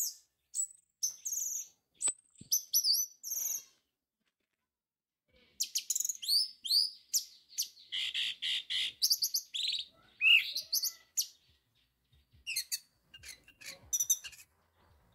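Orange-headed thrush singing: quick, varied whistled and chattering phrases, a pause of about two seconds after the opening phrases, then a long, dense run of song.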